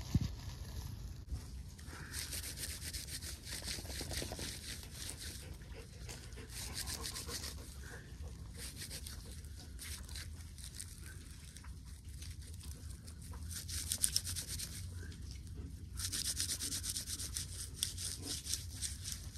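Dry bark fibres rubbing against each other as they are rolled and twisted between the hands into cordage. The dry rasping comes in stretches and is strongest in the last few seconds.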